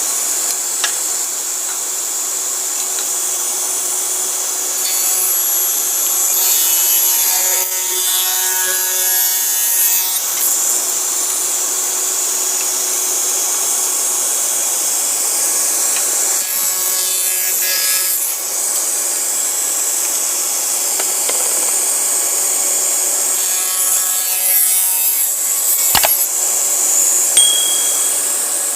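Circular saw running and cutting through wood, a steady loud sawing noise with a faint motor whine, with a sharp click near the end.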